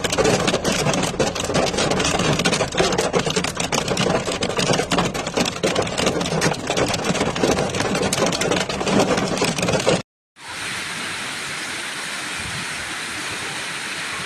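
Heavy rain pouring down, a dense crackling clatter of many small hits. About ten seconds in it cuts out briefly and gives way to a steadier, smoother rush of rain and water.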